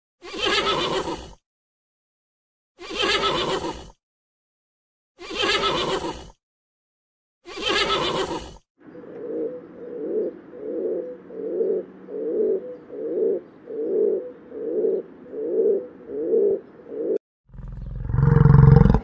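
A horse neighing four times, each call about a second long with short silences between. Then a rock pigeon cooing in a steady run of about a dozen coos. Near the end comes a deep, loud low call from a bovine.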